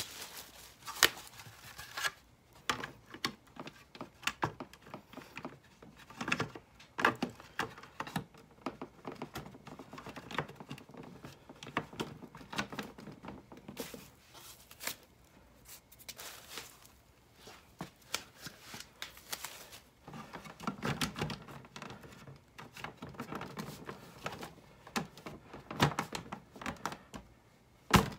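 Plastic fog light bezel of a 2018 Subaru WRX being handled and pressed into the front bumper by hand: irregular clicks, taps and rustling, with a louder sharp snap near the end.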